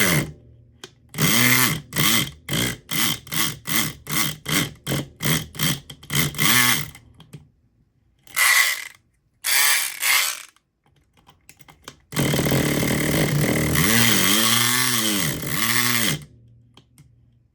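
SouthOrd E500XT 4.5-volt electric pick gun buzzing in the lock. It fires in a rapid string of about a dozen short bursts, then two more, then runs continuously for about four seconds.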